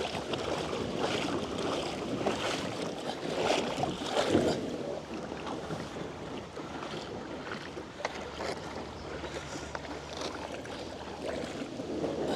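Shallow river water sloshing and splashing as a grounded kayak is pushed and dragged through a riffle by someone wading beside it, with a few stronger swishes partway through.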